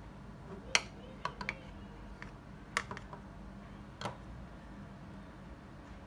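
Metal spoon clinking and tapping against a glass dessert bowl and a plastic container while syrupy banana slices are spooned out: about eight sharp clicks over three seconds, the loudest about a second in.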